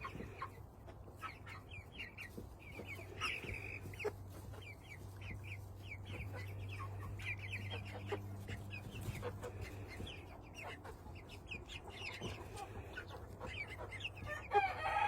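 Chickens clucking and chirping in many short, high calls, with a louder, drawn-out call near the end that leads into a rooster's crow.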